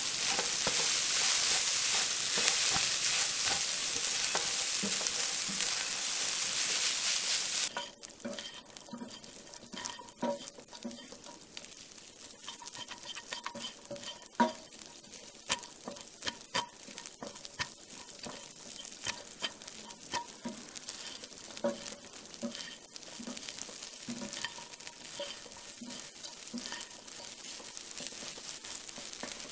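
Curry fried rice sizzling in a hot wok as it is stir-fried. About eight seconds in, the loud sizzle drops away suddenly, leaving a quieter run of scrapes and light taps as a spatula turns the rice against the pan.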